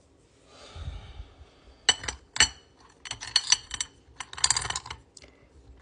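Small crystal stones clinking against each other as they are picked through and set down: a soft rustle, two sharp clicks about two seconds in, then quick runs of clinks.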